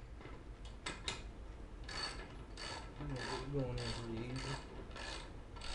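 Hand ratchet wrench clicking in a steady rhythm, about two strokes a second, as a bolt is tightened into a wooden 2x4 roller frame.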